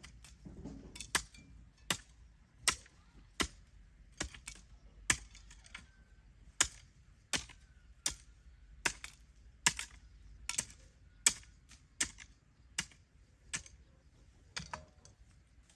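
A hoe striking hard ground in a steady rhythm of sharp, separate strokes, about one every three-quarters of a second, as a trench is dug.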